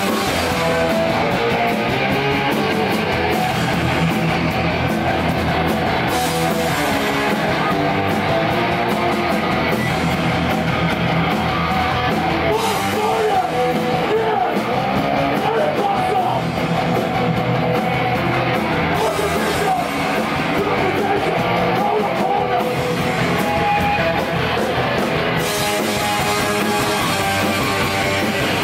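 Hardcore band playing live: electric guitar, bass guitar and drum kit going without a break, with vocals over them.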